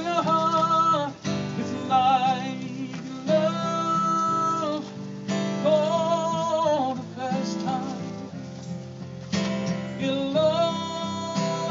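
Music: strummed acoustic guitar under a melody of long, wavering held notes, in phrases a second or two long.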